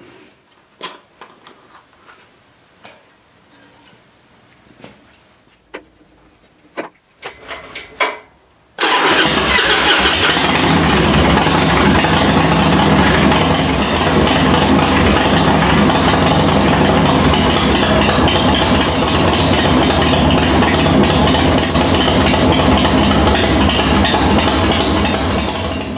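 A few light clicks and knocks of handling, then about nine seconds in a Harley-Davidson Dyna's V-twin engine starts up suddenly and runs steadily at idle before shutting off near the end. It is run after the oil change to check for leaks, and none are found.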